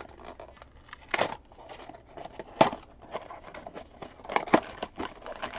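A small cardboard mystery box being torn open by hand: scattered scrapes and tearing of the card, with a few sharp snaps of the flaps.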